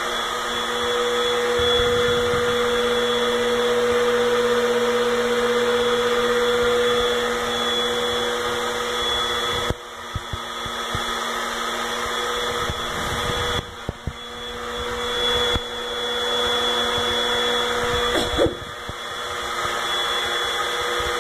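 Vacuum cleaner running with a steady motor whine, dipping and shifting briefly a few times in the second half.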